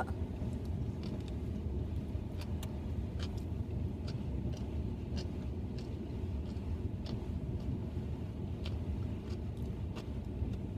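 Steady low rumble in a car cabin, with faint scattered clicks of chewing as seaweed salad is eaten.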